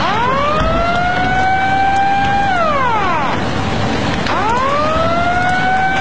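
Outdoor tsunami warning siren wailing twice: each wail rises, holds a steady pitch, and the first falls away about three seconds in. Under it runs a steady rushing noise.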